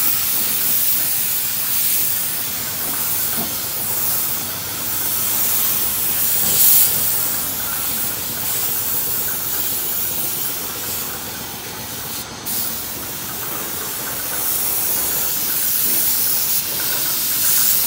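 Compressed-air paint spray gun hissing steadily as it sprays paint onto a scooter body, with a brief break about twelve seconds in when the trigger is let off.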